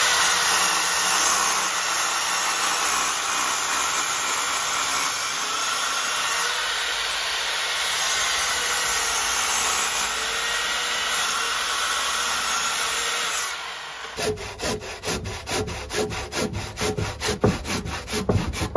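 Sliding miter saw running and cutting into a thick timber sleeper, a steady loud cut for about fourteen seconds, taken as deep as the blade can reach. It then stops and a handsaw finishes the cut with quick, even back-and-forth strokes.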